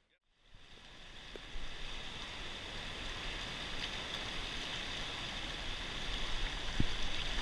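Fast river water rushing and splashing past the side of a drift boat, a steady hiss that starts after a moment of silence and slowly grows louder.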